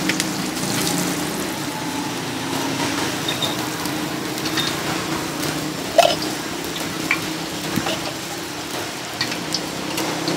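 Beaten egg poured from a plastic jug into small ceramic bowls on a charcoal grill, over a steady hiss and low hum of the grill stall, with scattered small clicks and a single clink about six seconds in.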